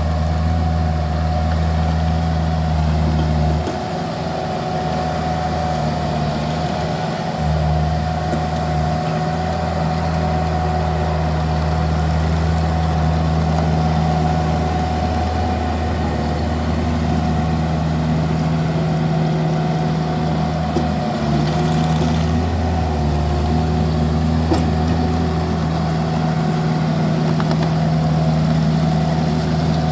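Vermeer mini skid steer's engine running steadily while pushing snow with a snow box. Its low engine note drops away for about three seconds starting about four seconds in, then steadies again.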